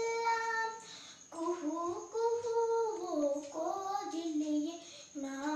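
A young girl singing a Kannada bhavageete (light song) unaccompanied, in held and gliding notes, with two short breath breaks: about a second in and near the end.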